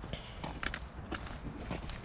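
Footsteps of a man and a dog walking together: a run of light, irregular steps.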